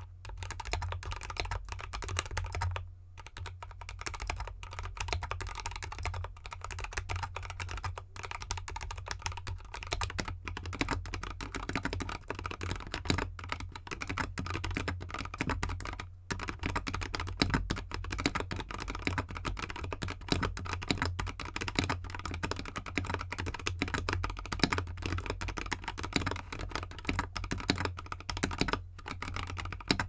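Continuous fast typing on a 64% mechanical keyboard with stock, factory-lubed Gateron Cap Gold linear switches, XDA keycaps and a foam-dampened anodized aluminium case: a dense stream of keystrokes with brief pauses. For the first ten seconds or so the board sits on a cork mat and felt; after that it rests with no mat under it.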